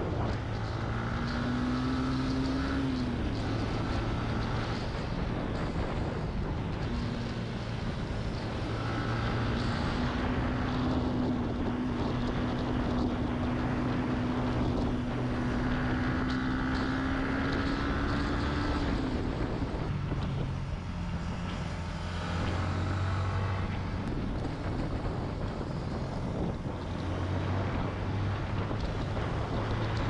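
Motorcycle engine running while riding along, a steady hum with a higher engine note that climbs slowly through the middle and falls away about two-thirds of the way in. Wind rushes over the microphone throughout.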